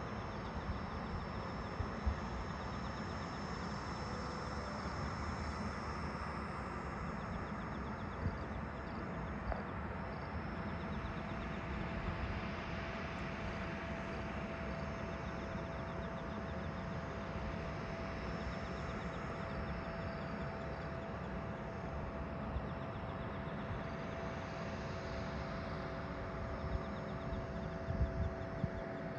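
Steady rushing hum from a parked Boeing 767-300ER airliner. A steady whine joins about ten seconds in and a lower one near the end, with a few brief knocks near the end.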